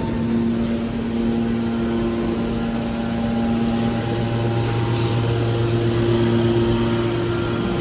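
Machinery running with a steady hum: several held tones over an even rumble, with no clear change in the run.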